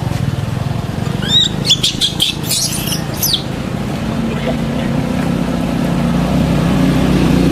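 A run of high, chirping squeaks with a few clicks from an animal, between about one and three and a half seconds in. From about four seconds on, an engine's steady hum grows slowly louder as a vehicle approaches.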